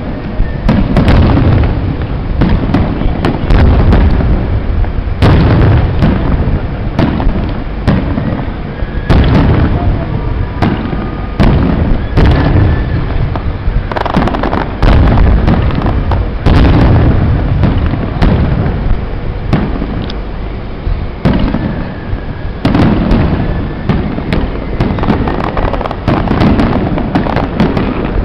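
Aerial fireworks shells bursting in quick succession: loud bangs and booms, several a second, over a continuous low rumble.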